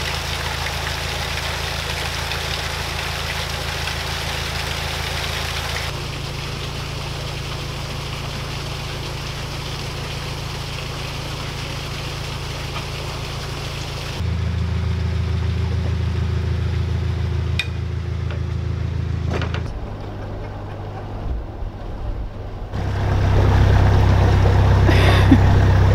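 Narrowboat engine running steadily while water gushes through the lock gate paddles into the chamber. Further in, the engine note changes and gets louder as the boat moves on along the canal.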